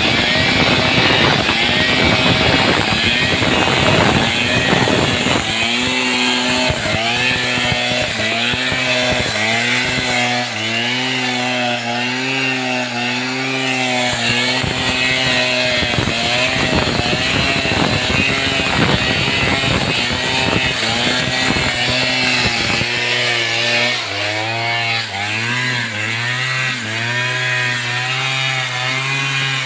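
Stihl two-stroke chainsaw cutting jackfruit wood. The engine note repeatedly dips and rises as the chain bites into the cut, and it sounds rougher and noisier in the first few seconds.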